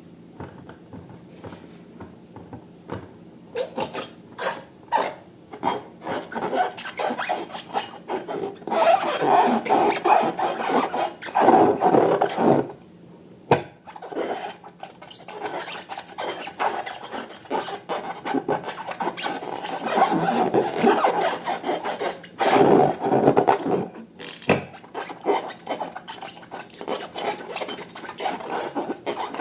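Hands working slime and rubber balloons: irregular rubbery rubbing, squishing and crackling with many small clicks, heaviest in two long stretches and briefly quiet near the middle.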